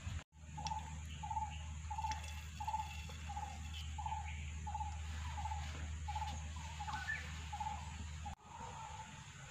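An animal calling in short, evenly spaced notes, about two a second, over a steady low hum that stops abruptly near the end.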